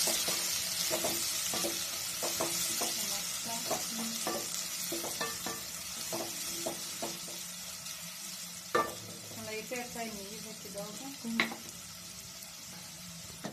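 Sliced carrots and onions frying in oil in a metal pot, with a steady sizzle that fades toward the end. A wooden spoon stirs them, scraping and knocking against the pot many times, with two sharper knocks in the second half.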